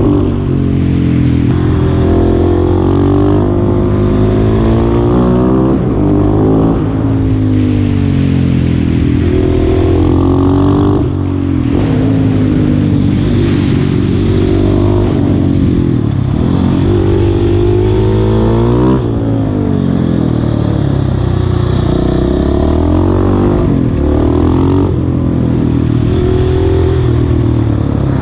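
Husqvarna 701 Supermoto's single-cylinder engine, through an Akrapovic exhaust, ridden at full throttle. The revs climb hard and drop again and again as it pulls through the gears and backs off.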